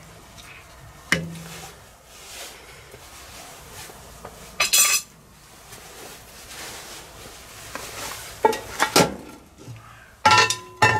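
Wooden spoon stirring stew in a cast-iron Dutch oven, with scattered knocks and scrapes against the pot. Near the end, several sharp metal clanks with a brief ringing tone as the cast-iron lid is handled against the pot.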